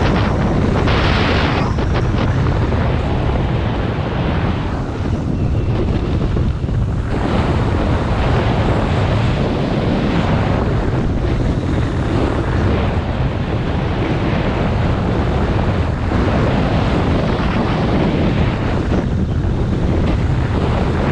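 Wind buffeting a GoPro Hero 7 Black's microphone on a fast downhill ski run at about 25 mph, a loud, steady rumble. A brief brighter hiss comes about a second in.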